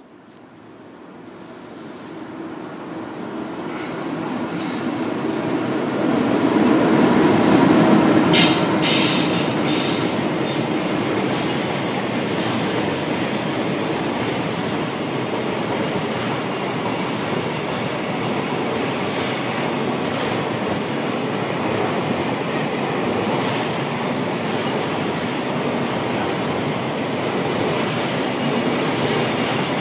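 Freight train hauled by an EH500 electric locomotive passing close by. The sound swells as the locomotive approaches and is loudest about seven to nine seconds in, with a few sharp clacks. A long line of container wagons then rolls by with a steady rumble and clatter of wheels over the rails.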